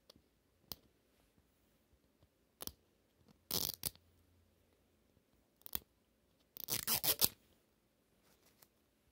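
Plastic wrapper on a Mini Brands capsule ball crinkling and tearing in a handful of short bursts as fingers pick at it, the longest burst about two thirds of the way in.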